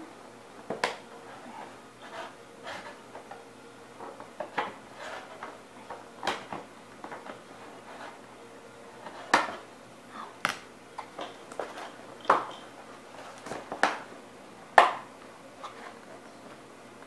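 Scissors snipping and scraping at a toy box's cardboard-and-plastic packaging, with the box handled between cuts: irregular sharp clicks and short rasps. The loudest snips come in the second half.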